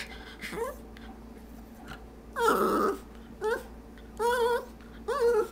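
Schipperke 'talking': a string of about five short yowling, grumbling vocal sounds with a wavering pitch, the loudest and roughest about two and a half seconds in.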